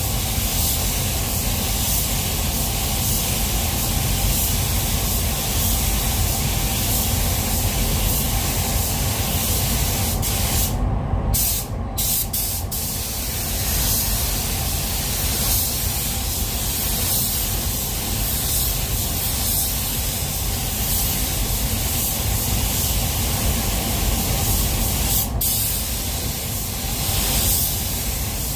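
Compressed-air spray gun hissing steadily while spraying base coat, over a steady low rumble; the spray cuts out briefly twice about eleven seconds in as the trigger is let off.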